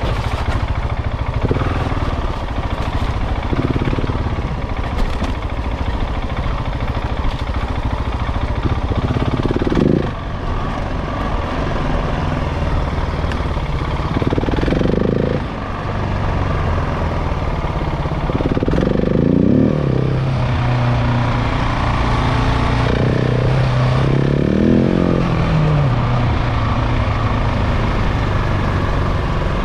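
KTM 690 Enduro's single-cylinder engine under way off-road during its break-in, pitch rising and falling repeatedly as the rider opens and closes the throttle, with brief drops in loudness where the throttle is shut.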